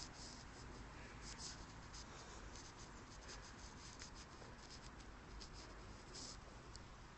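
Faint, irregular rustling and scratching close to the microphone, typical of a handheld phone being moved and handled while walking.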